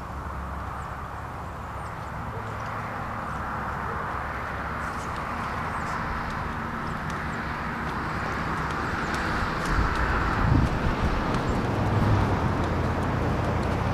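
A steady rushing background noise that slowly grows louder, with the soft thuds of a horse's hooves on arena sand coming in near the end as the horse passes close.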